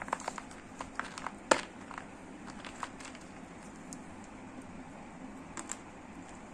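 Lumps of dry gray clay being handled in a plastic tray: a quick run of sharp clicks and small cracks, the loudest about a second and a half in, then a few fainter clicks near the end.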